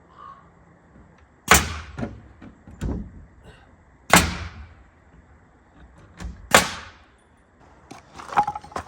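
Three loud, sharp knocks or bangs about two and a half seconds apart, with lighter knocks between them and a run of small clicks near the end.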